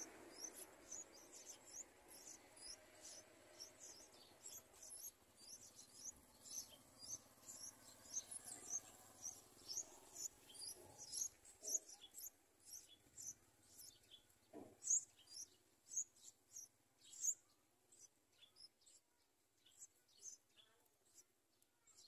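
Faint, high-pitched begging chirps of yellow-vented bulbul nestlings at the nest, repeating two or three times a second and thinning out near the end. A soft knock comes about fifteen seconds in.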